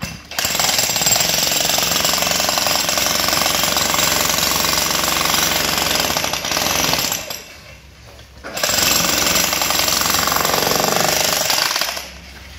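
Makita HM1306 electric demolition hammer chiselling into concrete: a loud, rapid, steady hammering. It runs for about seven seconds, stops for about a second, then runs again for about three seconds and stops near the end.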